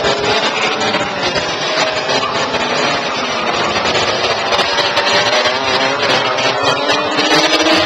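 Several racing kart engines buzzing at high revs as karts pass on the track, the pitch rising and falling as they brake and accelerate through the corners.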